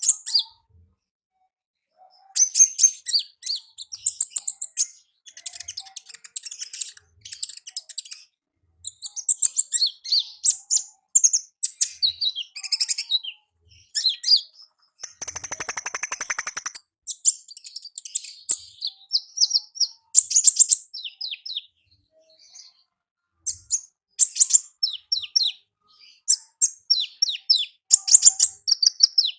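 Konin ninja sunbird singing: rapid, high-pitched twittering phrases separated by short pauses, with one louder, sustained buzzing trill about fifteen seconds in.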